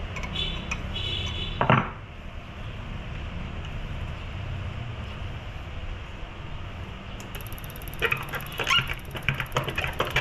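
Hand-operated diesel injector pop tester being worked: a brief high squealing chatter, a sharp crack about 1.7 s in, then a steady low hum and a run of irregular clicks and clacks near the end. The pump feels stiff and is not building pressure.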